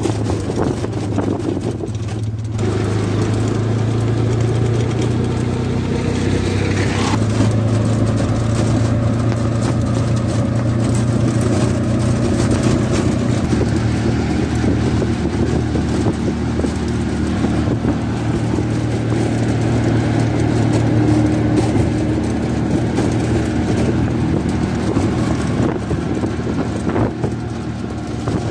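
Motor vehicle engine running steadily with road noise, heard from inside the moving vehicle.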